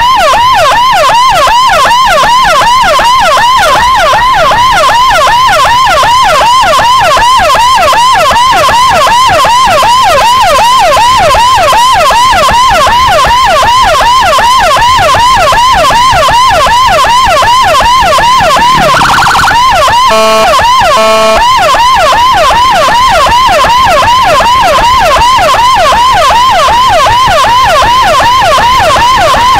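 Motorcycle-mounted electronic escort siren (CJB 200E through a Toa YD100i speaker) sounding a fast yelp, rising and falling a few times a second and very loud. About two-thirds of the way in the yelp breaks off for a short steady tone and two short horn blasts, then resumes.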